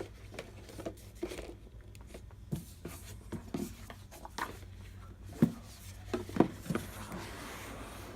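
Cardboard board-game pieces and box being handled: scattered light taps and knocks with some rustling, and two louder knocks a little past five and six seconds in.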